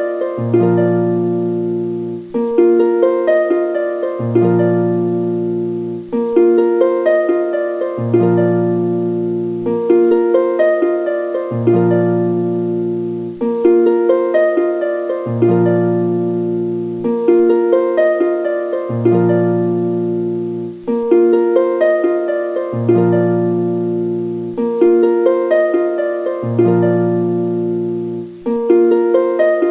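Background music: quick plucked-string notes over held low notes, in a short phrase that loops about every two seconds.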